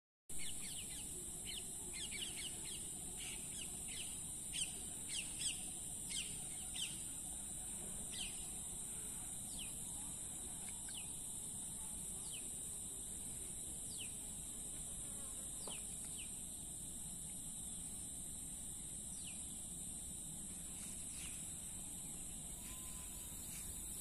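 A steady high-pitched insect drone with birds calling over it in short, quick falling chirps, many in the first seven seconds, then only now and then.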